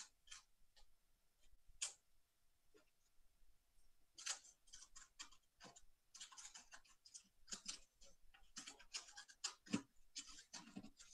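Faint, quick scratchy rustles and crackles of paper and adhesive tape being handled while a paper loop is taped onto a rolled-paper fuselage. The rustling is sparse at first and comes thick and fast from about four seconds in.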